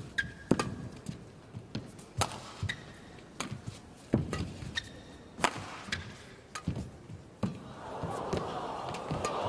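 Badminton rally: a string of sharp, irregular hits of rackets on the shuttlecock, with players' footwork on the court, in a large hall. A swell of background noise builds near the end.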